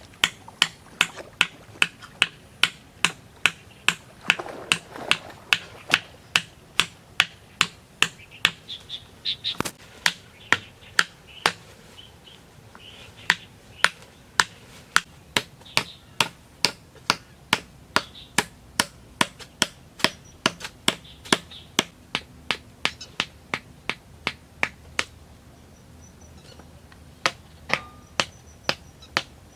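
Steady, even series of sharp strikes, about two a second, as of a hand tool striking bamboo during building work; the strikes pause for a couple of seconds near the end, then resume.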